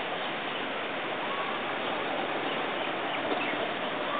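Steady outdoor ambience: an even rushing noise with a few faint bird calls.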